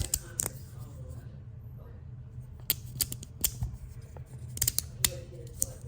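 Resin fidget slider being worked by hand: sharp clicks and snaps, about a dozen, unevenly spaced, as its magnetic halves slide and catch.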